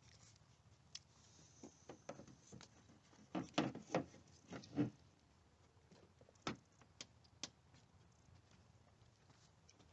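A string of light knocks and clicks from hard objects being handled, bunched together in the middle, then three single clicks about half a second apart.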